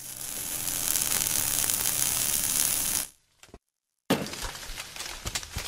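Sound effects of an animated logo intro: a rising hiss swells for about three seconds and cuts off, then after a second of silence comes crackling with many sharp clicks.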